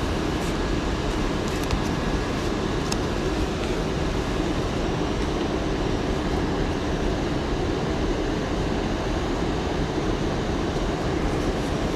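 R179 subway train running: a steady rumble of wheels on rail, with a few faint clicks.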